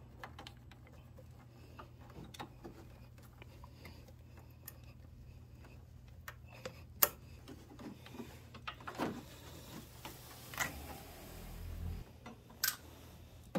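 Scattered small clicks and light knocks from hands handling a scooter's hoses, clips and plastic body panels, over a low steady hum. The sharpest click comes about seven seconds in, and another comes near the end.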